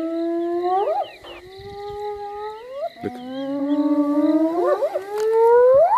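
An animal howling: about three drawn-out calls, each held at a steady low pitch and then rising sharply at the end.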